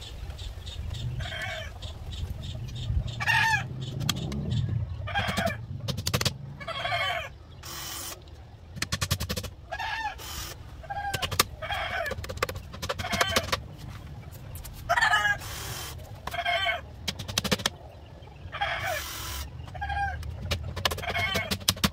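Chickens clucking, with a short call every second or two. Scattered sharp clicks and knocks from the cage work come in between.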